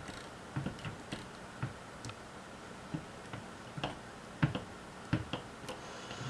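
Faint, irregular small clicks and ticks from a JVC camcorder's tape mechanism as its belt-driven pulley and gears are turned and pressed by hand. The drive belt has no torque whatsoever and looks loose, which the owner takes for a wrongly fitting belt.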